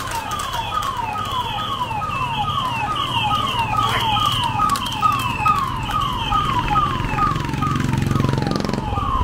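Electronic vehicle siren sounding a fast repeating yelp, each note falling in pitch, about two sweeps a second. A low engine rumble swells near the end as a vehicle passes close.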